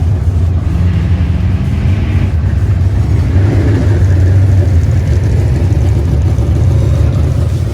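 Dirt track race car engines running with a loud, steady low rumble; one engine's pitch rises slightly between about one and two seconds in.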